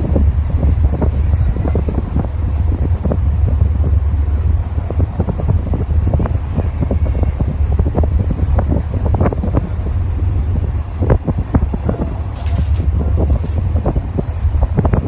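Wind buffeting the microphone aboard a large passenger ship at sea: a steady low rumble with irregular crackling gusts.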